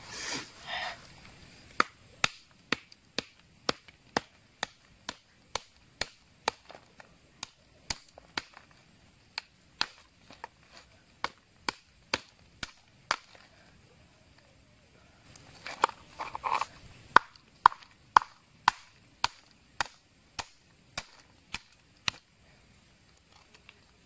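A stone pestle tapping on a roasted coconut snail's shell to crack it open: a steady series of sharp knocks, about two a second, with a short break about halfway that is filled by rustling.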